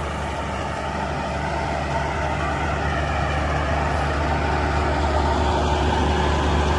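Heavy diesel farm-machinery engine running steadily, a deep drone that grows a little louder. A faint steady whine joins it about four and a half seconds in.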